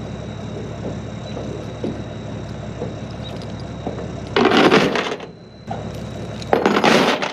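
Steel load-securing chains clattering as they are dropped onto an aluminum flatbed deck, twice: about four and a half seconds in and again near the end. Under it a truck engine idles steadily.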